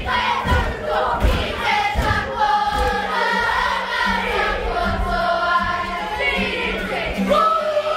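A large group of children singing together, with an acoustic guitar accompanying them. Low thumps sound in the first few seconds before the singing settles into long held notes.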